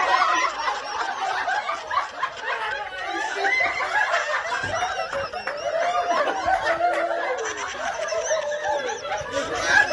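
A group of people laughing together, many voices overlapping at once.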